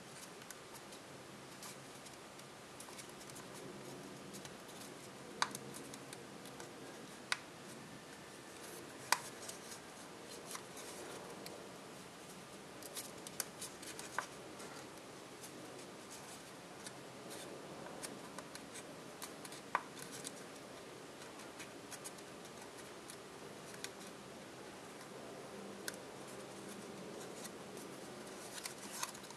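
Copper tissue foil being folded and pinched into shape by hand: faint rustling, with sharp crinkles every few seconds as creases are pressed.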